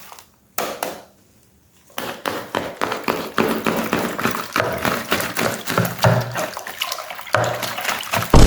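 Slime being squished by hand, a dense run of wet, sticky clicks and pops that starts about two seconds in.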